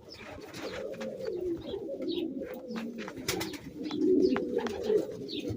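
A brooding bird cooing in low, wavering tones, with a few sharp clicks about midway.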